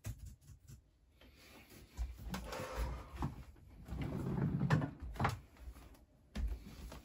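Cloth rustling and a few soft knocks as a dark bag or garment is lifted off a bed and the bedding is moved about, with one more knock near the end after a brief quiet gap.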